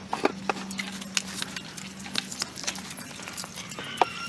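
Close-up eating sounds: people chewing and smacking their lips, making many short irregular clicks over a steady low hum.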